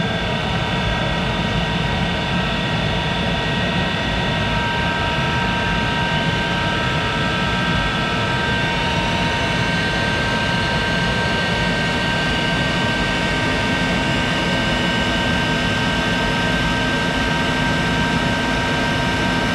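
1951 Monarch 10EE toolroom lathe running at its top spindle speed of 2500 rpm without cutting: a steady whine of several tones over a low rumble. A faint high tone edges up in pitch around the middle, and a lower hum joins about two-thirds of the way in.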